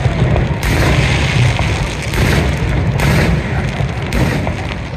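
Fireworks going off in a rapid series: several loud booms a second or so apart over a continuous low rumble.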